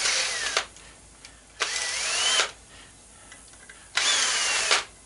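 Cordless drill-driver run in three short bursts on the screw of a metal clamp around a CRT tube's neck, each burst under a second. The motor's whine rises in pitch during the second burst and falls during the third.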